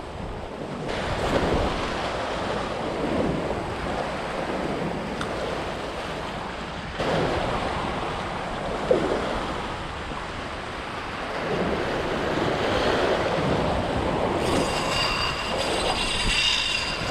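Waves washing in surges against the jetty rocks, with wind buffeting the microphone. A steady high-pitched whine joins in near the end.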